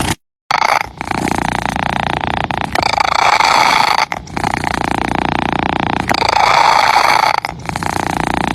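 Domestic cat purring close to the microphone, a loud rough rumble that breaks briefly every one and a half to two seconds. It cuts out completely for a moment just after the start.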